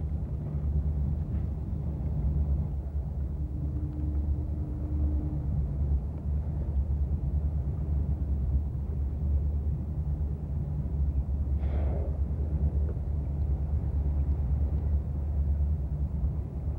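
Boat engine running steadily, a low rumble.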